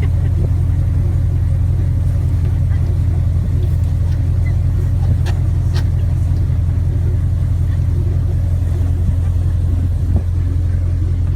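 Airboat engine and propeller running at a steady speed, a loud, even low drone with no change in pitch.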